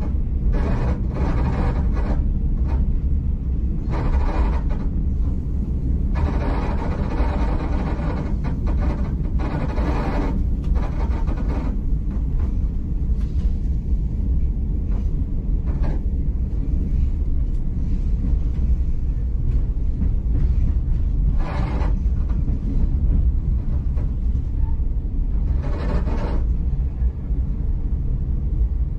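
V/Line passenger train in motion heard from inside the carriage: a steady low rumble, with louder, hissier stretches of wheel and track noise coming and going every few seconds.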